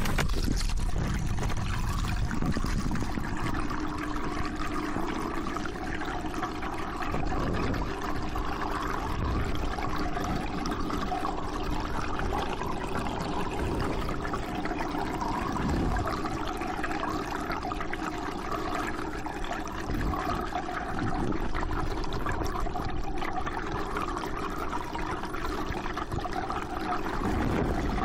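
Steady flowing, trickling water in a goldfish tank, heard from under water, with a faint steady hum beneath it.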